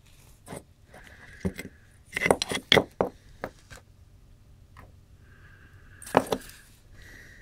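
Metal clinks and knocks of a finned aluminium heatsink being handled and lifted off a server voltage-regulator circuit board. The loudest clatter comes about two to three seconds in and again about six seconds in.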